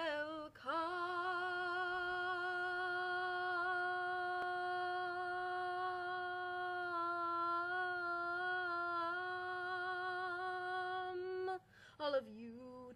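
A woman's voice holding one long sung note with vibrato for about eleven seconds. The pitch dips slightly for a while partway through, then returns, and the note cuts off near the end, followed by a few short vocal sounds.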